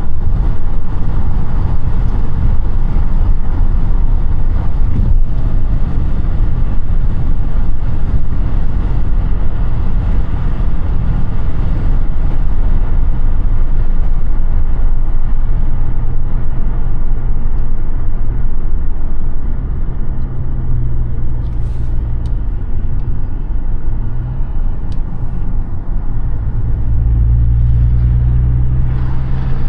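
Audi A5 (8T) on the move: steady engine drone with road and tyre rumble. From about halfway through, the engine's low tone comes through more clearly, and it grows deeper and louder near the end.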